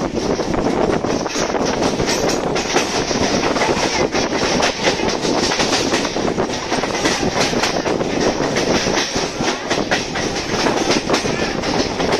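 Suburban electric local train running at speed, heard from on board: a steady rush of wheel and wind noise with rapid clicking of the wheels over rail joints.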